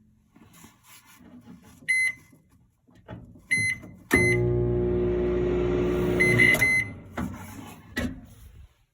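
Microwave oven keypad beeping several times, then the oven running for about two and a half seconds with a loud steady electrical hum before it is stopped with more beeps. A couple of knocks follow near the end.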